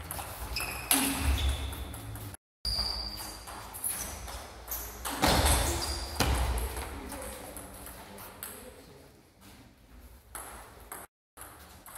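Table tennis ball clicking off the bats and the table during rallies. A louder noise comes about a second in and again from about five to six seconds in. The sound cuts out completely twice, briefly.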